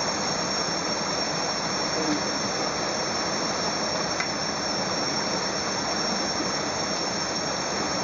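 Shallow river running over rocks and rapids, a steady rush of water, with a thin steady high-pitched whine over it.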